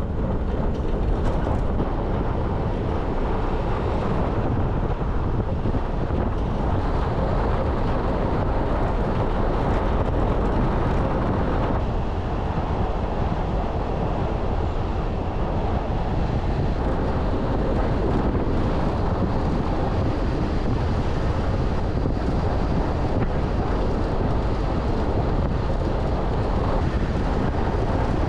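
Mazda BT-50 four-wheel-drive ute driving on a dirt track: steady road and engine noise with wind buffeting the microphone.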